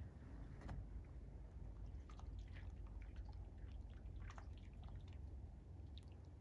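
Seawater lapping gently at the shore, with scattered small splashes and drips at irregular intervals over a low, steady rumble.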